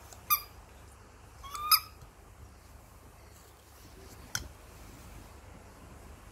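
A baby macaque gives two short, high-pitched squeaks, the second gliding upward, followed a couple of seconds later by a single sharp click.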